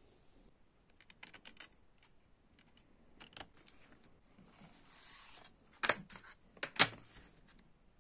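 Clear plastic CD jewel case being handled: a few light clicks, a soft sliding rustle, then two sharp plastic clicks about a second apart.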